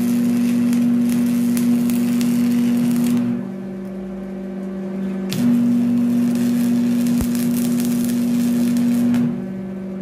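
Stick (arc) welding on a steel sledgehammer head: the electrode's arc crackles and sizzles over a steady low hum. The arc breaks about three seconds in for a couple of seconds, then again near the end, leaving only the hum.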